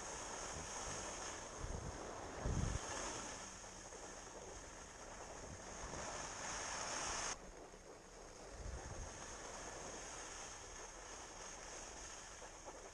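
Steady rushing wind noise on the microphone, with a couple of brief low thumps; the rush drops abruptly about seven seconds in.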